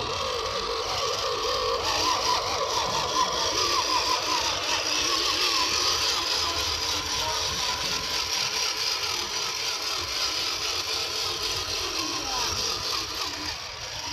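Small electric motor and gearbox of a 1/10-scale RC rock crawler whining as it crawls, the pitch wavering up and down with throttle and load.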